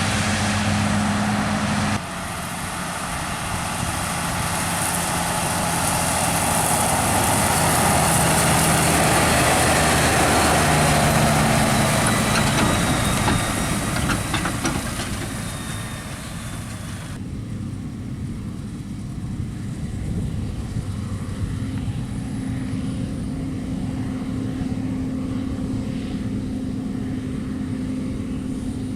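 Claas combine harvesters running at harvest: a steady engine and machinery drone. It changes abruptly twice as the shots change, swells and fades again as a machine draws near and moves off, then settles into a quieter steady hum.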